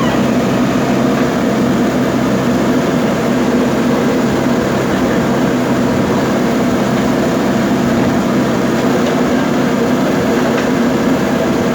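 Diesel engine of a JCB backhoe loader running steadily with a deep hum.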